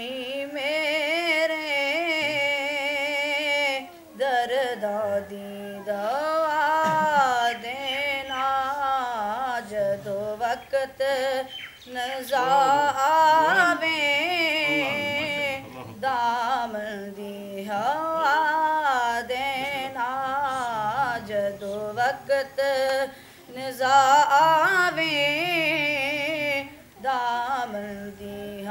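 A boy's high, unbroken voice singing a Punjabi naat unaccompanied, in long ornamented phrases that waver and glide in pitch. There are short breaths between phrases, about every four to seven seconds.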